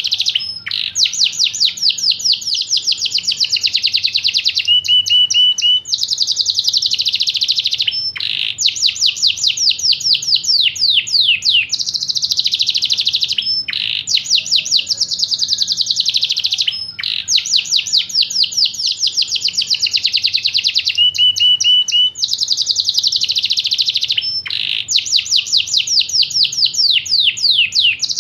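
Yorkshire canary singing continuously: long, fast trills of repeated notes that change every few seconds, broken by brief pauses, with a short run of lower, steadier notes twice.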